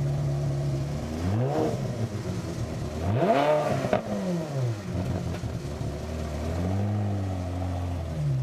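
Supercar engine idling and revved in blips: a quick rev about a second in, a bigger one rising and falling a couple of seconds later, and a gentler one near the end, settling back to idle between them.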